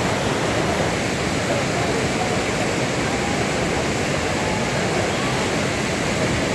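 Fast river water rushing steadily over rapids, a constant, even wash of noise.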